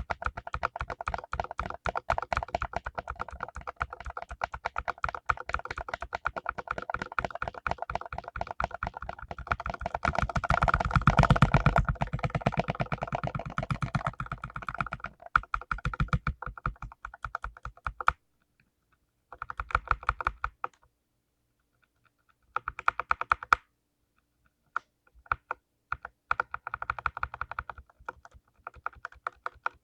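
Fast typing on a mechanical keyboard with lubed clicky blue switches, a rapid stream of key clicks. The typing is densest and loudest partway through, then breaks off after about 18 s into short bursts separated by brief pauses.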